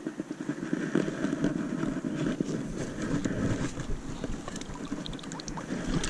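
A hooked fish splashing and thrashing at the water's surface as it is scooped into a landing net, with the net then lifted dripping out of the water near the end.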